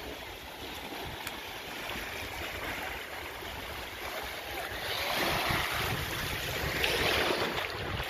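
Small waves lapping and washing at the water's edge of a sandy beach, with wind on the microphone; the wash gets a little louder about five seconds in.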